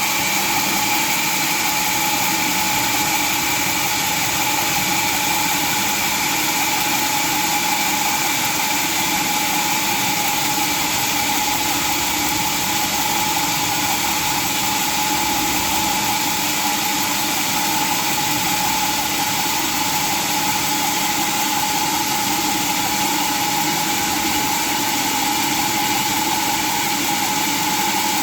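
Sawmill saw machinery running steadily, an even mechanical noise with a constant whine that does not change.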